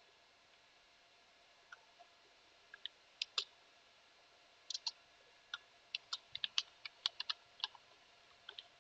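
Faint computer keyboard keystrokes: a few scattered clicks, then an irregular run of typing through the second half.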